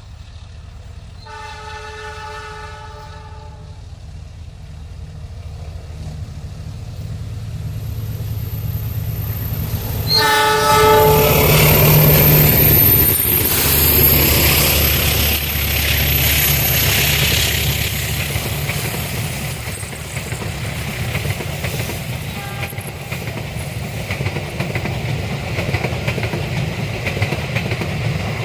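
Indonesian diesel-electric locomotive sounding its horn, a short blast about a second in and another about ten seconds in, then passing close with its engine working hard on an upgrade, followed by the train's carriages rolling by with a steady clickety-clack.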